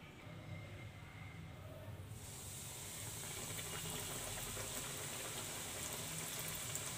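Flour-coated chicken fillet sizzling as it deep-fries in hot oil in a kadhai: a steady hiss that sets in about two seconds in and slowly grows louder.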